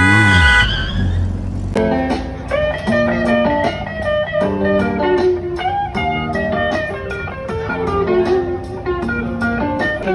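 Background music: a short sweeping sound effect in the first second or two, then a tune of plucked guitar notes over a regular beat.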